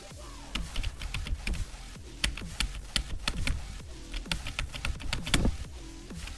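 A quick, irregular run of sharp clicks from computer keyboard keys being typed, several a second, with one louder click about five seconds in.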